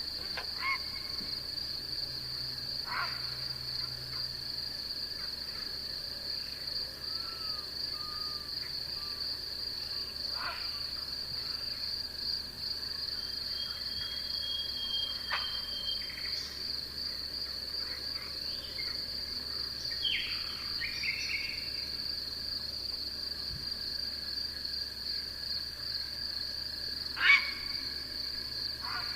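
Night insect chorus: a steady high-pitched trill with a fainter lower steady drone under it. Scattered short sharp calls break through now and then, the loudest near the end.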